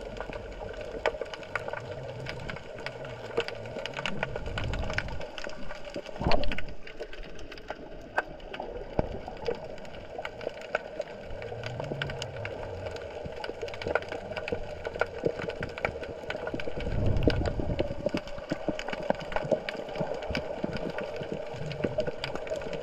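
Underwater ambience picked up by a GoPro in its housing beneath a pier: a constant crackle of small clicks over a steady hum, with low surges of moving water swelling and fading a few times. A single sharp knock sounds about six seconds in.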